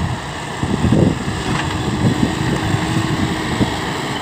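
Heavy construction machine's diesel engine running steadily with a low rumble, a faint held tone in the middle.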